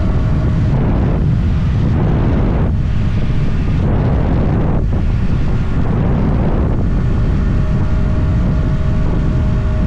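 Wind buffeting the microphone over a stock Yamaha R125's single-cylinder 125 cc four-stroke engine running at riding speed, with a steady engine tone clearest near the end.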